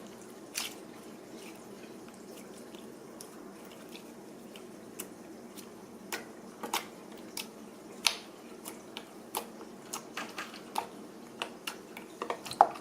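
Slime being slowly stretched and worked by hand, giving faint, scattered sticky clicks and small pops that come more often in the second half.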